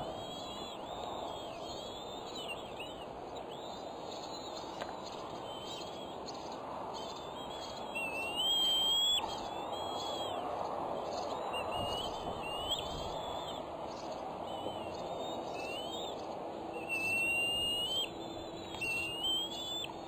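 Bald eagles calling at the nest: a long series of high, thin chirping whistles, with a longer, louder rising note about eight seconds in and again near the end, over a steady rushing background.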